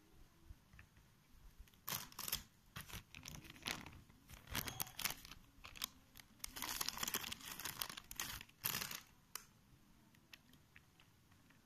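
Clear plastic zip-lock bag crinkling and rustling as it is handled, in irregular bursts over several seconds, with a few sharp clicks.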